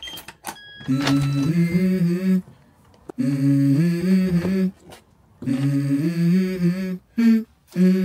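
A man humming a tune in a few repeated phrases of low, steady notes, with short breaks between them. A couple of sharp clicks come right at the start.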